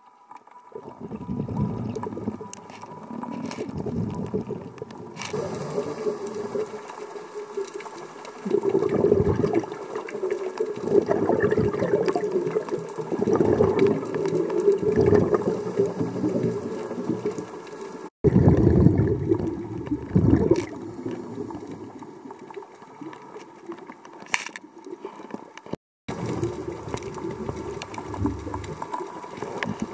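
Underwater recording of a scuba diver's exhaled bubbles, rushing and gurgling in swells every few seconds with quieter inhalations between. The sound drops out abruptly twice, at edit cuts.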